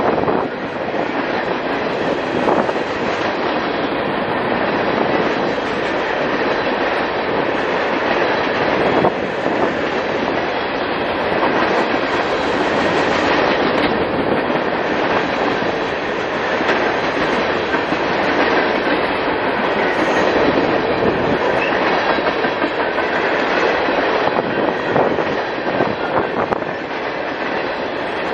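Cars of a long CSX freight train rolling past at speed: a steady, loud rumble and rattle of steel wheels on the rails, with faint scattered clicks.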